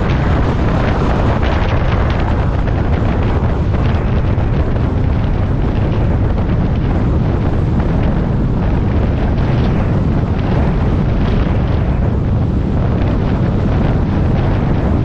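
Steady, loud low rumble and rushing noise of a moving vehicle, with wind buffeting the microphone.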